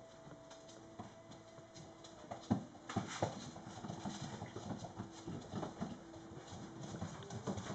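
Mastiff puppies scrambling about on a wooden floor: quick, irregular pattering and scuffling of paws and claws, with knocks, starting about two and a half seconds in over a faint steady hum.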